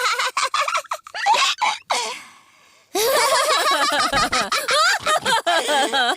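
Cartoon characters laughing: several voices giggling at once, dropping away about two seconds in and starting again from about three seconds in.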